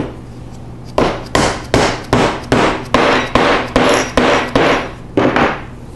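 A mallet knocking an ash workbench leg down onto a stretcher's tenon, seating the mortise-and-tenon joint tight. About a dozen even blows, a little over two a second, starting about a second in.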